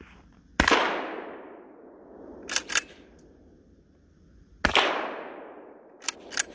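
Two 12-gauge buckshot shots from a Canuck Commander pump-action shotgun, about four seconds apart, each dying away in a long echo. A quick double clack follows each shot: the pump being racked back and forward.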